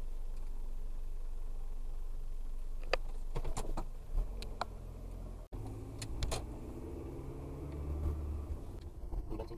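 Low steady hum of a car idling, heard from inside the cabin, with a few light clicks about three to four and a half seconds in. After an abrupt break about halfway through, a car's engine runs as it moves slowly.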